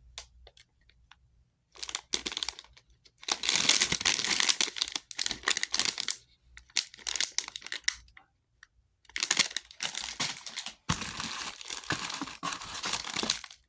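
Crinkly plastic snack wrappers being handled and rustled, in several stretches of a second or more with short pauses between.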